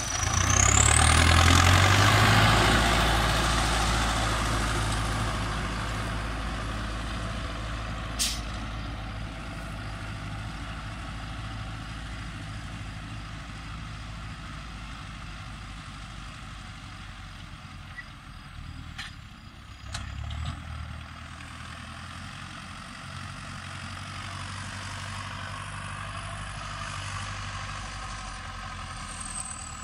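Belarus MTZ 820.4 tractor's turbocharged diesel engine running as the tractor drives close past and then away across the field, loudest in the first few seconds and then more distant, with a thin high whine over it. A couple of short clunks come around twenty seconds in as the engine note briefly strengthens.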